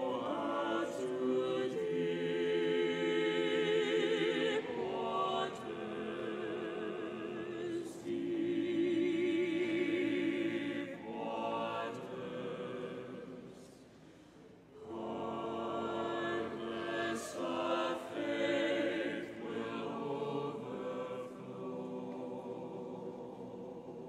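Church choir singing a hymn, in long phrases with wavering held notes and short breaks between them, the longest just past halfway.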